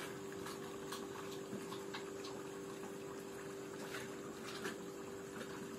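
A steady faint hum with a few light clicks and taps scattered through it.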